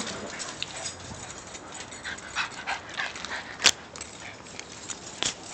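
Dogs running and playing, with short scattered dog sounds and one sharp click about three and a half seconds in.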